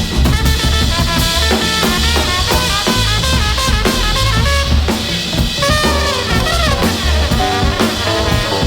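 Background music with a steady drum-kit beat and melodic lines, some notes sliding in pitch.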